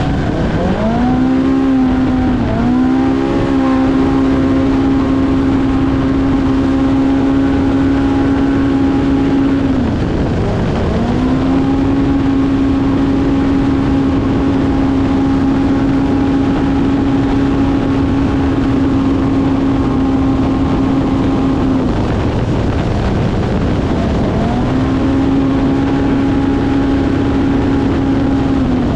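Polaris Pro R race UTV's engine heard onboard under hard throttle, held at one steady high pitch for long stretches. It drops away and climbs back three times: early on, about a third of the way through, and for a couple of seconds near the end, over a steady rush of wind and terrain noise.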